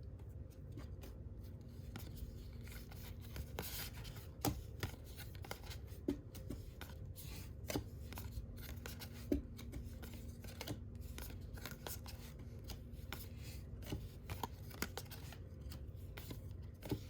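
Trading cards being handled and slid against one another: soft scattered rustles and light taps, with a faint steady hum underneath.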